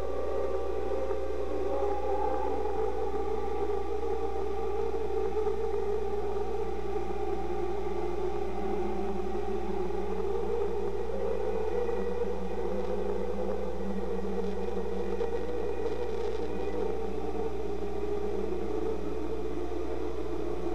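A steady electronic sci-fi drone with several slowly drifting, wavering tones over a constant low hum.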